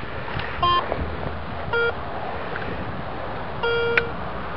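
Garrett Ace 250 metal detector sounding target tones as its coil is swept: a short higher beep about half a second in, then a short lower beep near two seconds and a longer lower beep near four seconds, ending with a click.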